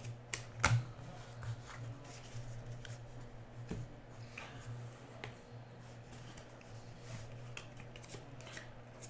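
Hockey trading cards being handled and flipped through: scattered soft clicks and slides of card stock, the sharpest pair about half a second in. Under them runs a steady low hum.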